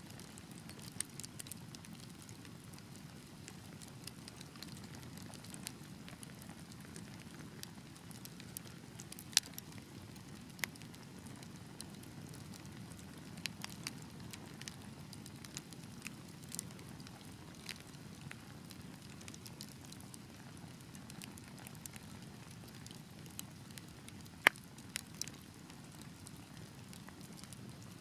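Wood fire burning with a low steady rush of flames and scattered sharp crackles and pops, two louder pops about nine and twenty-four seconds in.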